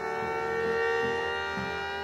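3D-printed miniature Federal Signal Thunderbolt 1003 siren sounding a steady chord-like tone, its pitch drifting slightly upward as the horn rotates, with a low pulsing beneath about twice a second.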